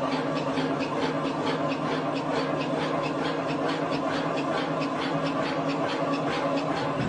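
Shake-table earthquake test of a precast concrete building: a steady mechanical hum with a rapid, even rattle of about four clicks a second as the structure is shaken.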